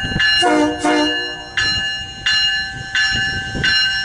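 Commuter train's bell ringing steadily, struck about once every 0.7 s, with two short horn blasts about half a second in, over a low rumble as the bilevel train moves slowly.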